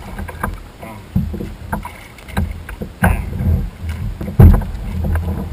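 Irregular low thumps and knocks from the plastic kayak hull carrying the camera as it is bumped and rocked. The loudest thump comes about four and a half seconds in.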